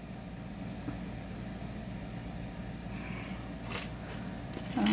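Steady low hum of room background noise, with a few faint clicks of costume jewelry pieces being handled and touching each other.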